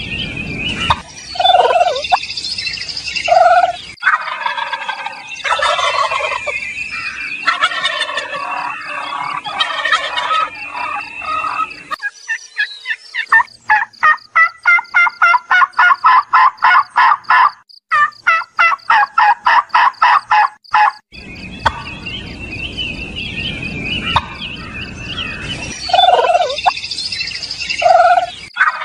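Domestic turkeys gobbling and calling, with a long run of rapid, evenly spaced pulsed calls, about four a second, in the middle. Small birds chirp faintly underneath.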